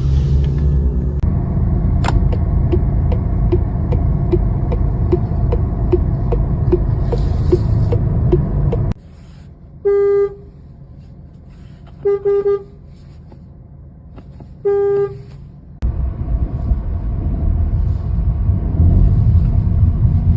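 Opel Astra car horn giving three short beeps a couple of seconds apart. Before them there is a steady low rumble with a regular tick about three times a second; the rumble drops away during the beeps and returns near the end.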